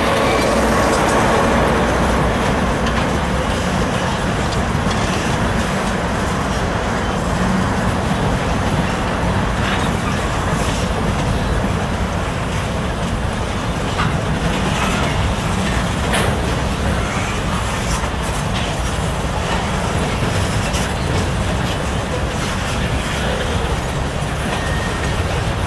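Norfolk Southern freight train rolling past: a steady rumble of covered hoppers and boxcars, with scattered clicks of wheels over the rails. At the start, the last of the diesel locomotives is still passing.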